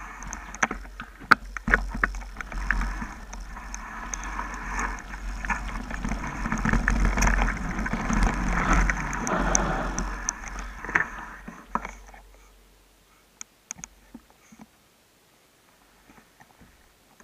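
Mountain bike riding fast down a dirt trail: rolling tyre noise with rattles and knocks from the bike over the rough ground, loudest about six to ten seconds in. About twelve seconds in the bike slows and it goes almost quiet, leaving a few clicks.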